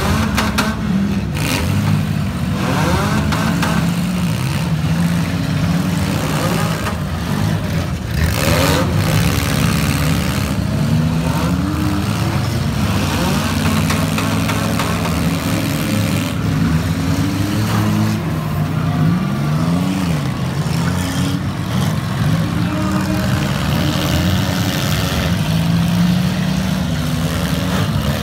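Several front-wheel-drive demolition derby cars' engines revving at once, their pitches rising and falling over each other. A few sharp crashes of cars hitting cut through, the loudest about eight seconds in.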